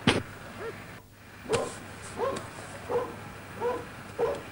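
A dog barking repeatedly, about one bark every 0.7 seconds, after a sharp click at the start.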